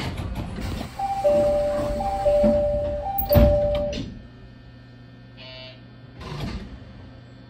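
Door chime of a JR Shikoku 6000 series train: a two-tone ding-dong rung three times over about three seconds while the train stands at the platform, with a heavy thump just before it ends as the doors shut. A brief buzz follows, then a steady low hum.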